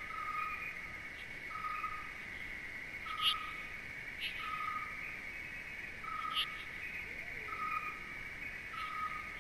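Night-time nature ambience: a steady high insect chorus, with a short, level, hooting call repeated about every one and a half seconds and a few brief higher chirps.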